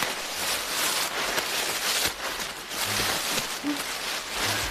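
Dry leaf litter rustling and crunching irregularly as people move about and sit down on a forest floor, over a steady outdoor hiss.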